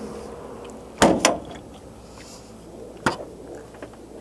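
Metal compartment door of a Reading utility service body slammed shut about a second in: a sharp bang followed a moment later by a second bang as it latches. About two seconds later comes a single sharp click of the pickup's cab door latch as the driver's door is opened.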